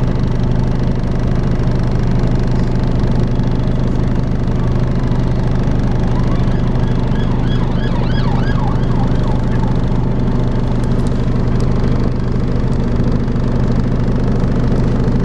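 Volvo B5LH hybrid double-decker bus running, heard on board, with a steady low drone: the vacuum-cleaner-like 'hoover' sound. In the middle a quick series of short rising warbles rides over it for a few seconds.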